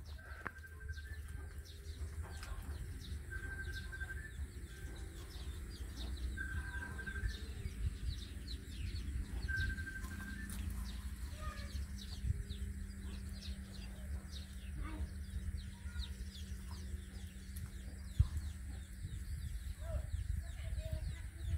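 Short, high-pitched animal calls, each a flat note of under half a second, come every second or few seconds in the first half, with scattered faint chirps, over a steady low rumble.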